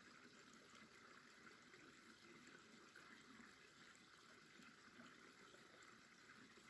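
Near silence: a faint, steady rushing in the background, like distant running water.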